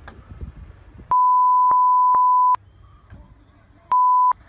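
A loud, pure, steady bleep tone laid over the soundtrack and blanking out everything beneath it. It lasts about a second and a half, then sounds again briefly near the end.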